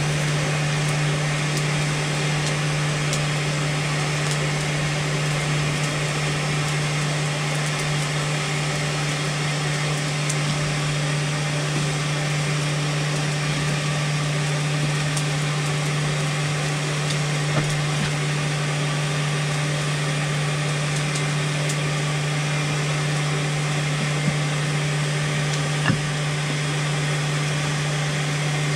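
A blacksmith's forge running: a steady hum with a rushing hiss, broken by a few faint clicks in the second half.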